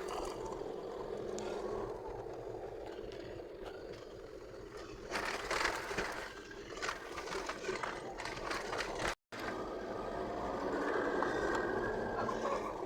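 Toyota Land Cruiser Prado engine running steadily, with scattered knocks and scrapes about five to seven seconds in; the sound cuts out for a moment just after nine seconds.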